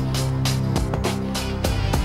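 Background music with a steady beat: drum strikes about three to four times a second over held bass notes.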